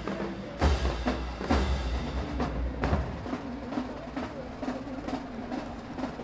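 Marching band drums starting up: several heavy bass-drum strikes in the first three seconds, then lighter drumming.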